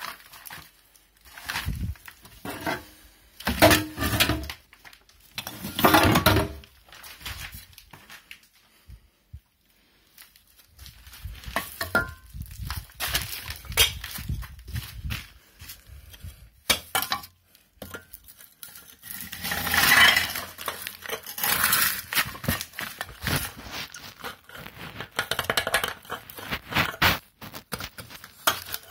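Irregular clinks, knocks and rustling of things being handled close to the microphone, with a couple of short metallic rings about halfway through and a brief lull a third of the way in.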